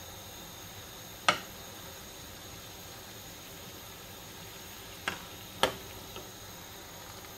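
Metal slotted spoon clinking against a saucepan: a loud sharp clink about a second in, then two quick clinks and a faint fourth near the end, over the steady hiss of simmering water.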